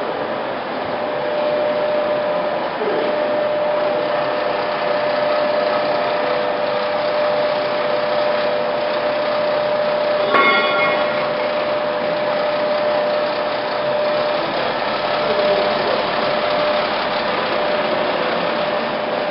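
POREBA TCG 125 heavy-duty lathe running: a steady mechanical hum with a constant tone, and a brief higher-pitched sound about ten seconds in.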